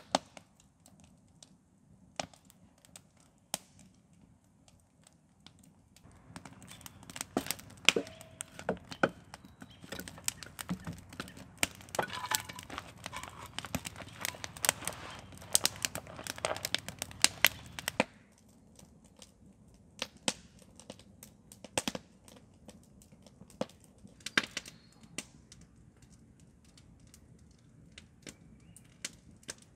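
Wood campfire crackling, with sharp scattered pops. Partway through, the crackling grows denser and louder for about twelve seconds, then thins back out to occasional pops.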